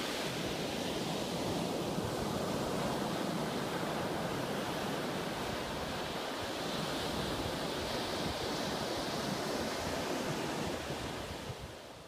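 Small waves washing onto a sandy beach: a steady surf hiss that fades out near the end.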